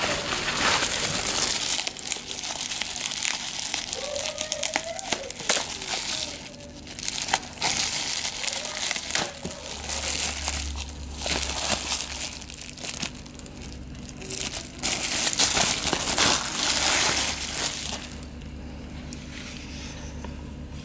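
Plastic bubble wrap crinkling and rustling in irregular bursts as it is pulled open and peeled off a battery charger, dying down near the end once the charger is free.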